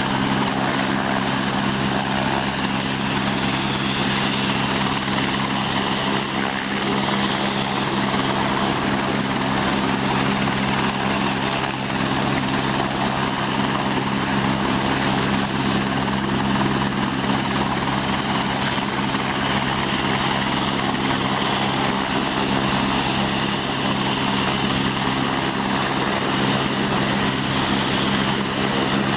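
Eurocopter AS350 B3 helicopter running on the ground, its single turbine engine and turning main rotor holding a steady whine and rotor noise without change.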